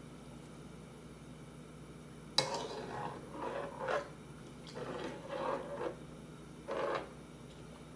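A utensil stirring and scraping against the inside of a pot of tteokbokki: a sharp knock about two and a half seconds in, then a run of short scraping strokes. A low steady hum runs underneath.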